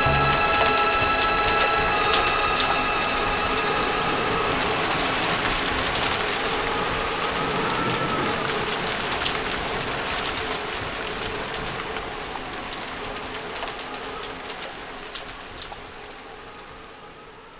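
A steady rain-like hiss with scattered crackles, slowly fading out. The last held chord of a song rings under it for the first few seconds.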